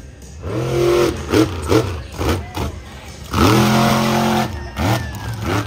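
Dirt Crew monster truck's engine revving in several short bursts, then a longer, louder rev about three and a half seconds in as the truck lifts onto its rear wheels in a wheelie.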